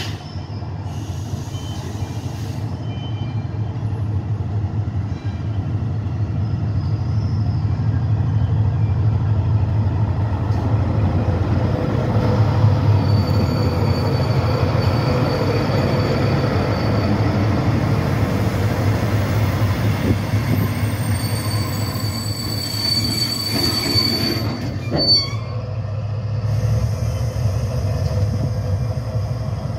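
Diesel locomotive hauling a timber freight train, its engine a steady low drone as it draws slowly past. A high brake squeal runs through the middle and cuts off sharply about 25 seconds in, as the train comes to a stand. The engine then runs on at a lower, steady level.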